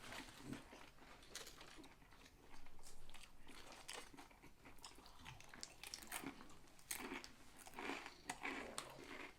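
A person chewing and biting food close to the microphone, with irregular crisp crunching and crackling; the crunching is densest about two and a half seconds in.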